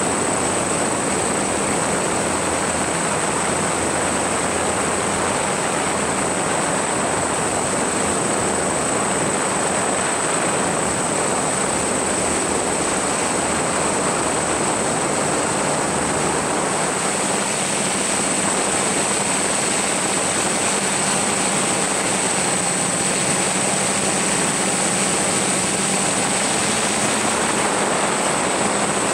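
Drone motors and propellers running steadily in flight, heard through the microphone of the camera it carries: a dense, even rush with a constant high-pitched whine.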